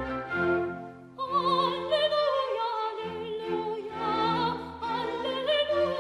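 Background music: an orchestra with a singer in operatic style, the voice coming in with a wide vibrato about a second in after a short drop in the music.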